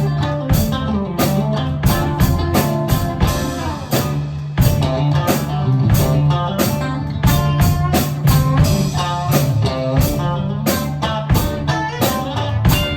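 Live band playing a song's instrumental intro: guitar over a drum kit keeping a steady beat, with a low bass line underneath.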